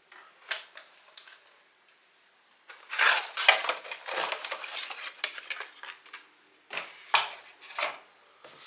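Someone rummaging through a motherboard box's packaging and accessories by hand. There are a few clicks, then several seconds of rustling and clattering handling noise about three seconds in, and a few more short bursts near the end.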